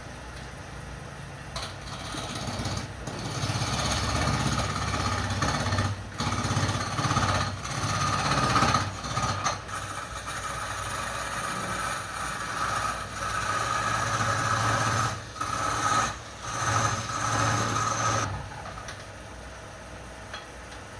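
Wood lathe running with a steady motor hum, while a tool works the spinning wood in spells of uneven, gritty cutting noise with brief pauses; the tool comes off the wood near the end, leaving only the motor.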